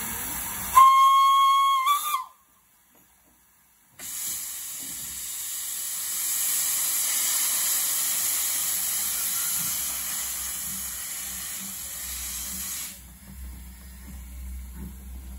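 Saddle-tank steam locomotive 'Sir Cecil A. Cochrane' (Robert Stephenson & Hawthorns No. 7409) gives one short blast on its steam whistle, a single tone that lifts slightly as it ends. A couple of seconds later a loud, steady hiss of steam from the open cylinder drain cocks sets in, dropping away near the end.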